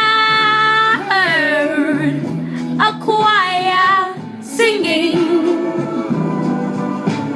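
A female voice singing a slow ballad, holding long notes with vibrato and sliding between pitches, over backing music.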